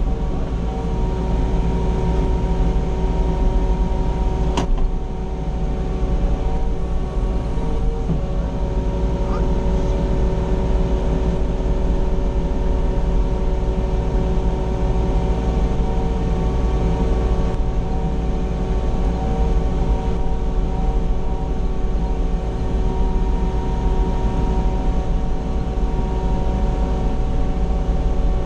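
Mini excavator's diesel engine running steadily, heard from inside the closed cab, with a deep rumble and a steady hum. One sharp click about five seconds in.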